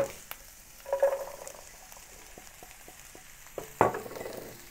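Chopped garlic and ginger frying in oil in a nonstick pan with a light sizzle, stirred with a wooden spatula in small knocks and scrapes. Just before the end, chopped broccoli florets are tipped into the pan with a sharp clatter.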